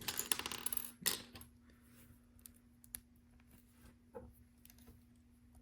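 LEGO pieces being handled and pressed together: a short clattering rattle in the first second, then a few faint scattered clicks.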